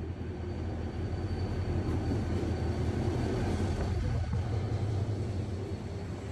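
Korail diesel-electric locomotive hauling a passenger train slowly along the platform, its engine a steady low drone.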